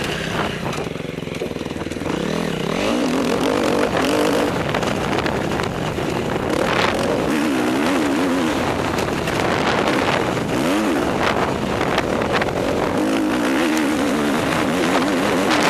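Motocross dirt bike engine running hard on a lap of a dirt track, its pitch rising and falling again and again with throttle and gear changes.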